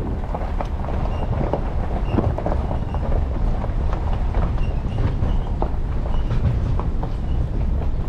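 Truck towing an enclosed trailer rolling slowly over a gravel and dirt track: a steady low rumble with tyres crunching gravel and frequent small knocks and rattles.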